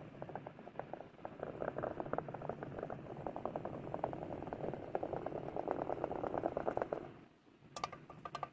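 A flat stick stirring thick, wet paste in a small plastic jar: a dense, irregular squelching and clicking that stops about seven seconds in. A few sharper clicks follow near the end as the stick is lifted out.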